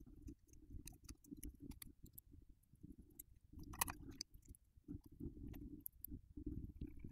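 Faint handling noise as a circuit board with its display is fitted into a plastic instrument housing: small scattered plastic clicks and rustles over a low rumble, with one sharper click about four seconds in.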